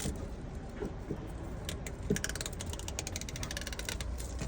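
Gorilla Tape being pulled off the roll: a few short tugs, then a rapid crackling rip lasting almost two seconds, starting about halfway through.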